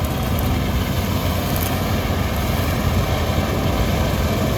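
Combine harvester running steadily while cutting wheat: an even, unchanging drone of engine and machinery.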